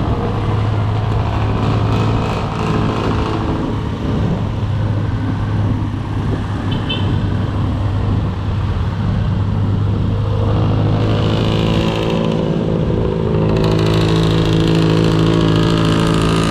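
Motorcycle engine running at low road speed, a steady note that moves up to a higher pitch about ten seconds in, with a hiss of wind growing near the end.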